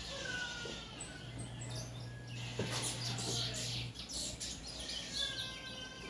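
Caged bullfinch singing. Clear whistled notes come first, then a quick run of high chirps and trills in the middle, and a longer whistled note with overtones near the end.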